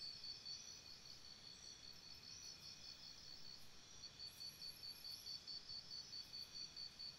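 Faint, even insect-like chirping: a high pulsing tone about four times a second, weaker for a few seconds in the middle.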